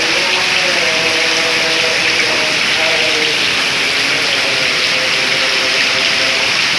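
Heavy rain pouring down in a steady, loud hiss, with faint voices underneath.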